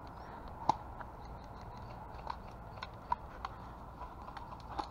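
Footsteps through dry woodland undergrowth: irregular light crunches and twig snaps, one sharper snap under a second in, over a steady outdoor hiss.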